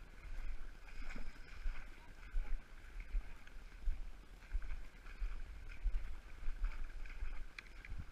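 Wind buffeting the camera microphone: a low rumble that rises and falls in uneven gusts, over a faint, steady higher background murmur.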